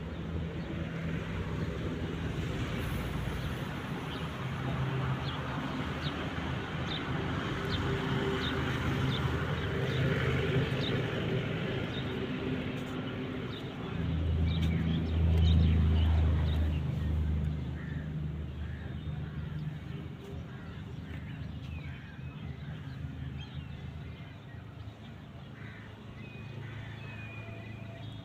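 Outdoor ambience: a steady low hum of motor traffic that swells to a louder rumble about halfway through, with short bird chirps in the first part.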